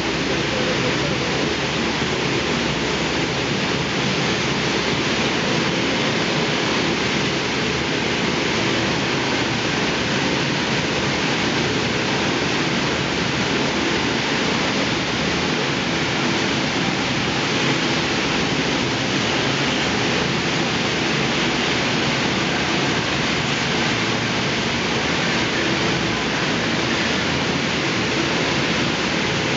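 Oxygen thermal lance (burning bar) burning into a copper furnace's slag tap hole, a steady rushing noise that does not let up.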